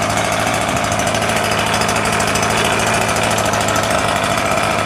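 Small single-cylinder air-cooled engine running steadily at a fast, even idle.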